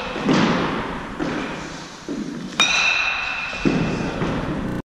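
Baseball bat striking a tossed ball with a sharp, ringing ping about two and a half seconds in, the ring hanging on for over a second, among several duller thuds. The sound cuts off suddenly at the end.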